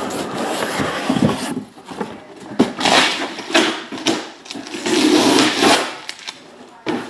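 A cardboard shipping case in plastic wrap being handled and moved on a table: rustling and scraping in several bursts, with a few knocks.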